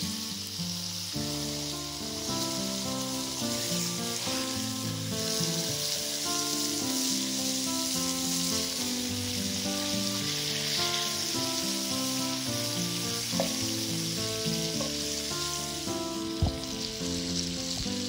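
Bacon sizzling steadily in a frying pan over a campfire, under soft background music of held notes. A single sharp knock near the end.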